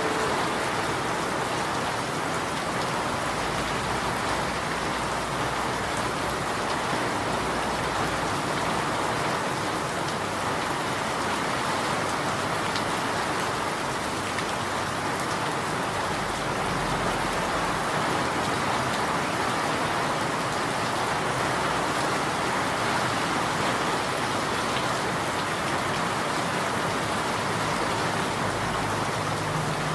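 Steady rain falling and pattering on surfaces, an even, unbroken hiss of drops.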